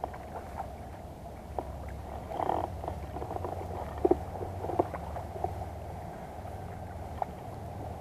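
Water sloshing and splashing at the surface as a hooked barracuda thrashes beside a float tube. There are a few short, sharp splashes or knocks, the loudest about four seconds in, over a steady low rumble.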